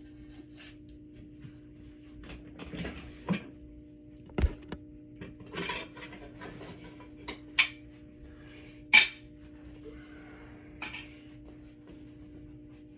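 A rubber whoopee cushion being blown up by mouth: short puffs of breath a few seconds apart amid rubbery handling noises and light clicks, with a sharp knock about four seconds in.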